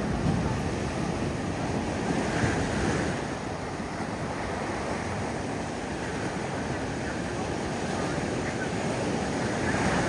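Ocean surf crashing against shoreline rocks, loudest at the start as a wave breaks. Foaming water then washes around the rocks, a little softer, and the surf swells again near the end.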